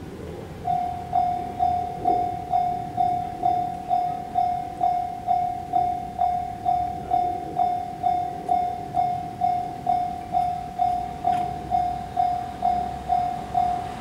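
Japanese railway level-crossing warning bell starting up a little under a second in and ringing its single electronic tone in even strokes about twice a second: the signal that a train is approaching and the barriers are coming down.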